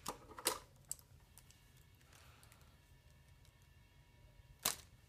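Plastic clicks from the rotary selector dial of an Excel DT-9205A digital multimeter being turned, a few in the first second. Near the end there is a single louder click as the test leads are handled.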